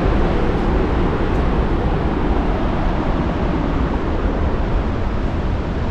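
Wind rushing over the microphone: a steady noise with a heavy low rumble.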